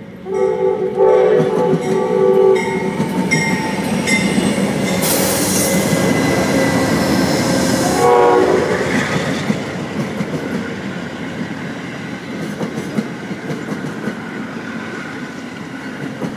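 Amtrak GE Genesis P42 diesel locomotive sounding its horn in several blasts as it approaches, with a last short blast about 8 seconds in, then rushing past. Its stainless-steel passenger coaches follow with a steady rumble and clickety-clack of wheels over rail joints.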